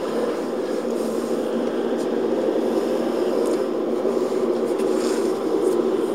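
Steady car driving noise heard inside the cabin, a low hum of engine and tyres, picked up by a camcorder mounted on the dashboard.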